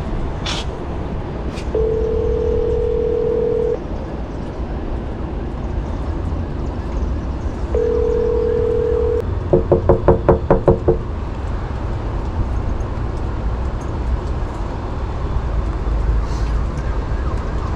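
Electronic tones from a building entry intercom: one long beep, a second shorter one several seconds later, then a quick run of about six short beeps, over a steady low outdoor rumble.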